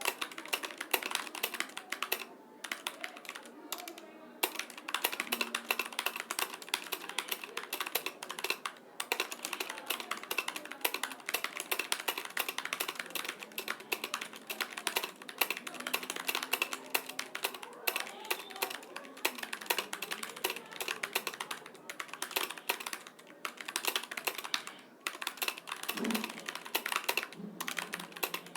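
Fast, continuous typing on a computer keyboard: a dense stream of key clicks broken by a few brief pauses.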